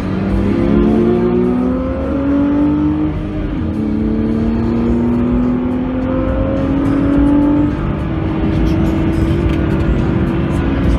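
BMW Z4 3.0i's straight-six engine accelerating hard under load, heard from inside the cabin over road and wind noise. The pitch rises steadily, drops at an upshift about three and a half seconds in, climbs again and drops at a second upshift near eight seconds, then holds fairly steady.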